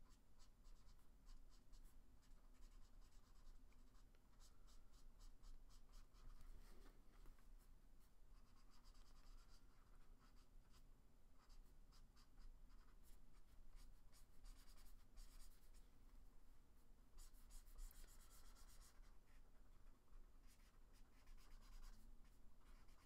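Faint scratching of a ChartPak art marker's felt tip on sketchbook paper, in runs of quick back-and-forth colouring strokes with short pauses between them.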